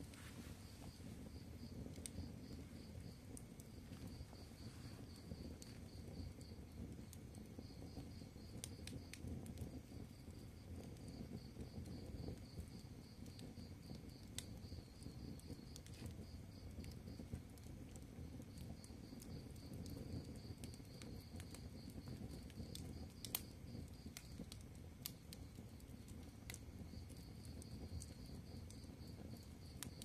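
Wood fire of split kindling and logs burning: a steady low rush of flames with scattered sharp crackles and pops, one louder pop about two-thirds of the way through. A high, pulsing chirp comes and goes in runs behind it.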